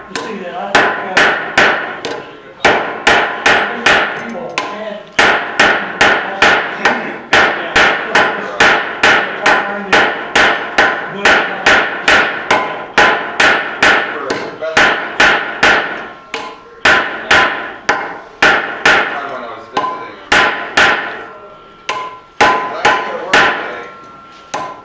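Hand hammer forging red-hot steel held in tongs on a small post anvil: sharp metallic blows, about three a second, in runs of several with short pauses between, each blow leaving a brief ringing tone.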